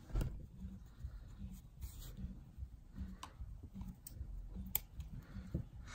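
Soft handling noises and scattered light clicks as a yarn needle and yarn are drawn through crocheted fabric. Faint background music with a steady low beat runs underneath.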